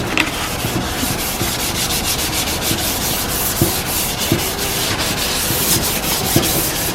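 Hand sanding with 320-grit sandpaper, rubbed back and forth over a brand-new motorcycle fender to scuff its surface so the primer and paint will stick.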